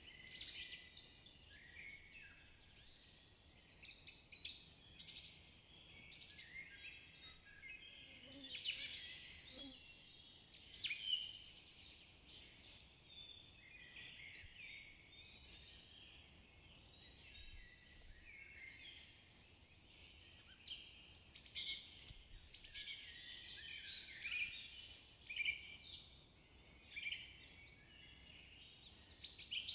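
Birds chirping and singing, many short calls overlapping in a continuous chorus.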